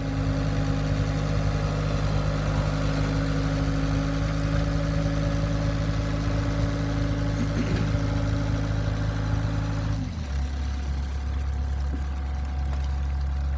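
A motor running steadily with a low, even hum, which drops abruptly to a lower pitch about ten seconds in.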